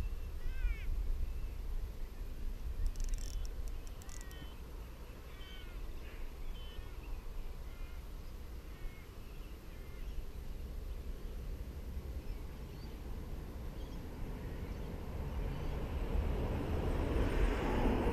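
Birds calling with short, falling chirps several times in the first ten seconds, over a steady low rumble of wind on the microphone. Over the last few seconds a rushing noise swells and becomes the loudest sound.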